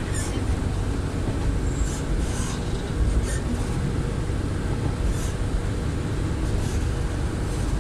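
Kanto Railway KiHa 310 diesel railcar under way, heard from inside the car: a steady low rumble of the diesel engine and running gear, with a few short high-pitched ticks.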